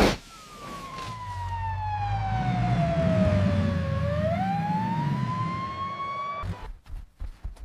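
A single whistle-like tone over a low rumble, gliding slowly down in pitch for about four seconds, then sliding back up before cutting off suddenly; a few short clicks follow near the end.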